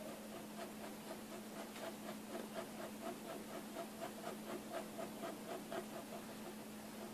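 Technical pen nib scratching short strokes on paper in a quick, even rhythm of several strokes a second, over a steady low hum.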